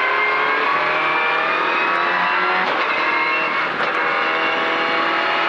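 Race car engine heard from inside the cockpit, accelerating with its pitch climbing, then dropping once at a gear change a little past halfway before climbing again.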